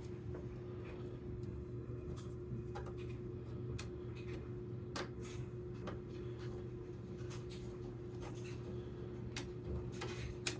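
Slot screwdriver turning the screw on the rear locking collar of a South Bend Model 9A lathe spindle: scattered small clicks and scrapes at irregular intervals as the collar is locked in place.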